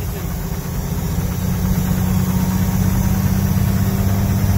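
Peterbilt 352 cabover's diesel engine running, heard from inside the cab: a steady low drone that grows stronger about a second and a half in.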